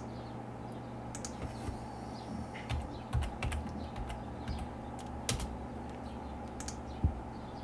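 Computer keyboard typing: scattered, irregular keystrokes as a number is entered into a field.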